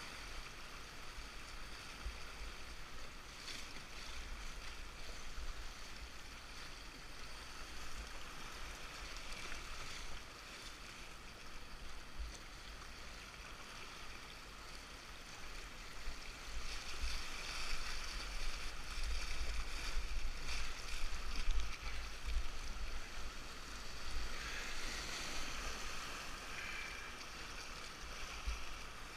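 River current rushing and splashing around a canoe running riffles in fast water, with a steady low rumble underneath. The water grows louder about two-thirds of the way through, then eases slightly.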